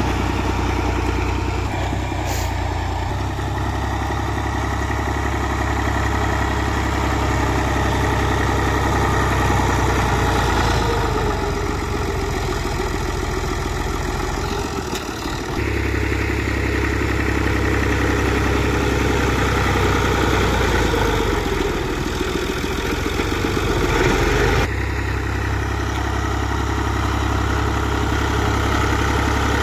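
Fiat 480 tractor's three-cylinder diesel engine running steadily while the tractor pushes soil with its front blade. The engine note shifts abruptly about halfway through and again near the end.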